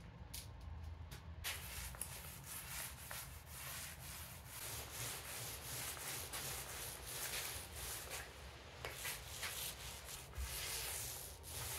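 Small paint roller spreading wet chalkboard paint across a hardboard panel: a steady rubbing swish that starts about a second and a half in and rises and falls with the roller's strokes.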